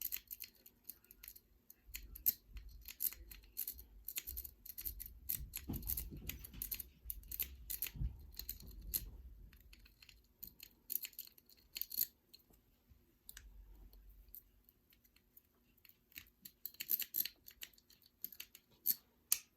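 Metal lock pick and tension wrench working inside an old lock: a run of small, irregular metal clicks and scrapes as the pick is raked and probed in the keyway, with a few soft handling thumps.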